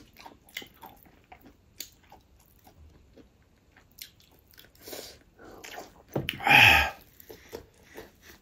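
A person chewing and biting food close to the microphone, with many small wet clicks. About six seconds in comes a much louder rushing sound lasting under a second.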